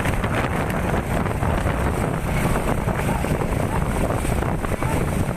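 Steady wind noise buffeting the microphone, over a dense rushing background.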